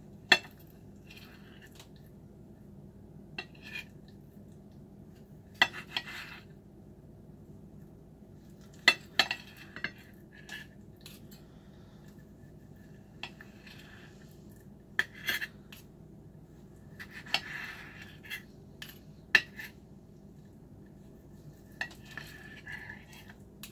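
Table knife and fork clinking and scraping on a ceramic plate while slicing fish: sharp, irregular clicks every second or few, some followed by short scrapes.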